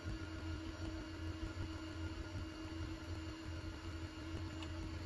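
Steady low mechanical hum with a faint constant tone over a soft noise bed, like a small machine or fan running in the background.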